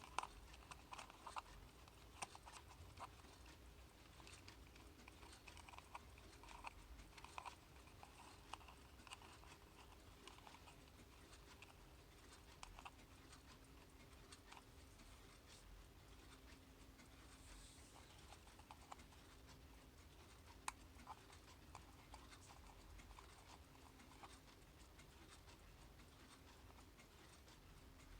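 Near silence with faint, irregular small clicks and taps from handling a plastic analog alarm clock.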